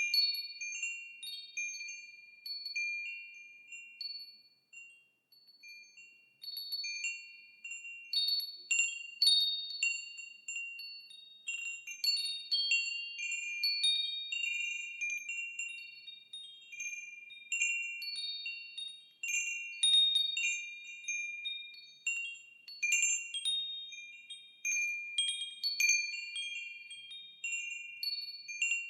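Wind chimes ringing, struck irregularly so that several high, clear notes overlap and each rings on and fades, with a short lull about five seconds in.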